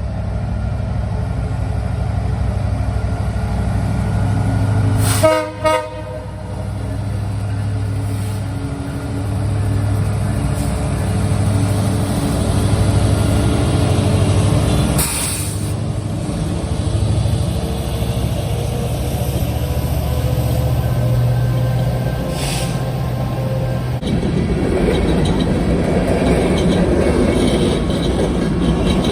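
Diesel freight locomotives running past with a steady low engine drone, and a short horn toot about five seconds in. Toward the end a rougher rolling noise of the train's cars takes over.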